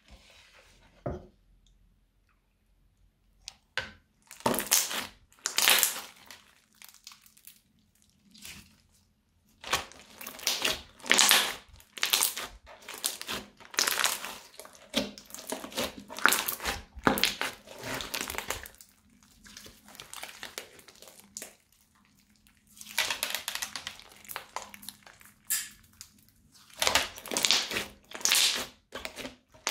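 Thick green crunchy slime with small beads mixed in being squeezed and pressed by hand, crackling and popping in repeated bursts. The first few seconds are nearly quiet.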